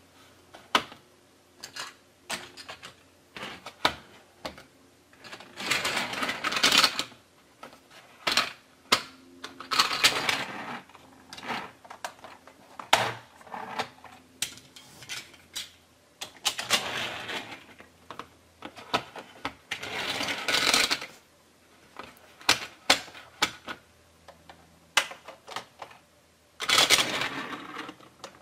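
Plastic toy clicking and clattering from a Take-n-Play roundhouse shed being handled: its turntable turned and its doors worked by hand. There are runs of rapid clicking about a second long, five or so, with single clicks between.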